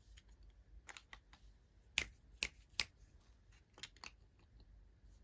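Sharp, irregular clicks and snips from handling unboxing packaging, about seven in all, spread unevenly.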